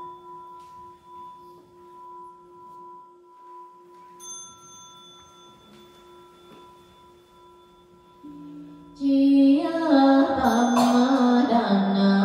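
A struck bowl bell rings with a long, slowly fading tone, and a higher, thinner ring joins about four seconds in. About nine seconds in, loud group Buddhist chanting starts.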